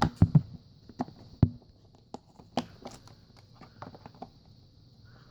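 Light clicks and knocks of the plastic parts of a Dirt Devil Power Express vacuum being handled and fitted together. The sharpest ones come in the first half second and again about a second and a half in.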